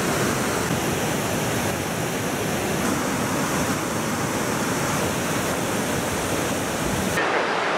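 The swollen Chenab river in spate: muddy floodwater rushing and churning in a steady, dense noise.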